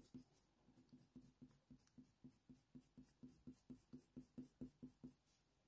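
Faint, quick strokes of a Faber-Castell Polychromos coloured pencil scratching on hot-press watercolour paper, about five strokes a second, as fine fur lines are hatched in.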